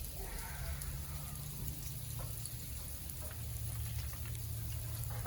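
Sleet, small ice pellets, falling and ticking on surfaces as scattered sharp little ticks over a steady low hum.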